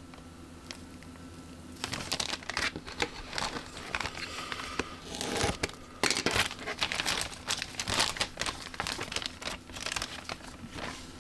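Crinkling plastic packaging as model kit parts trees are handled, irregular and on and off, starting about two seconds in.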